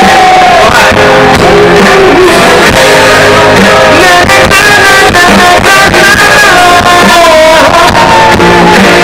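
Live rock band playing loud: a sung melody over electric guitar and drums.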